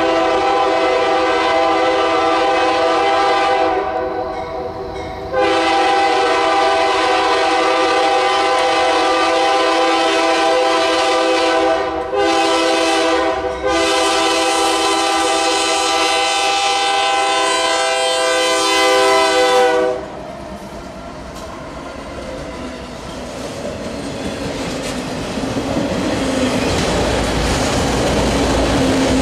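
Locomotive's multi-chime air horn blowing the grade-crossing signal, long, long, short, long, as the train approaches. The horn stops about 20 seconds in and gives way to the rumble of the train rolling past close by, growing louder.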